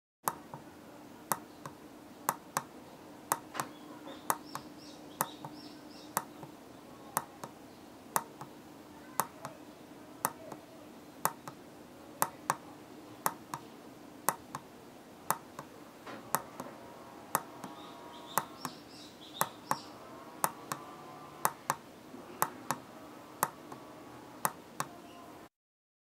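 Tactile push-button switch on a small circuit board being pressed over and over, giving sharp clicks at about two a second.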